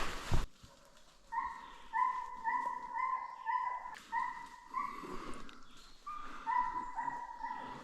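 Hounds baying: a run of repeated drawn-out notes, about two a second, each falling off at the end, with a short pause partway through. A brief rush of noise comes right at the start.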